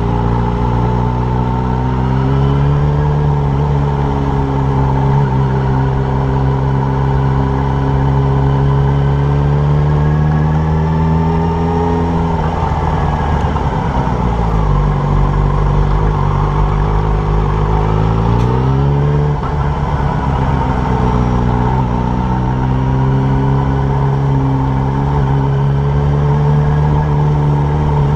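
Yamaha motorcycle engine riding at low town speed. The note rises a few seconds in, drops away about halfway as the throttle is rolled off, then climbs again and holds steady, with a low rumble of wind and road noise under it.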